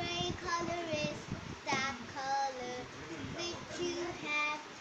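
A young girl singing a song on her own, with held notes that glide up and down between short breaths.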